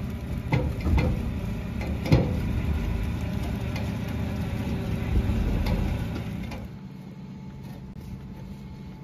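Truck engine running, louder at first with several sharp knocks and clunks, then dropping to a steadier, quieter idle about seven seconds in.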